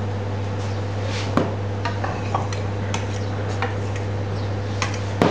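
Light clinks and scrapes of a metal palette knife against a saucepan and a steel tray while melted chocolate is spread, about seven short, separate clicks, over a steady low hum.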